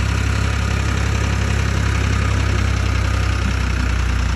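Diesel farm tractor engine running steadily under load, pulling a puddler through a flooded paddy field to churn the soil into mud (kaddu) for rice transplanting.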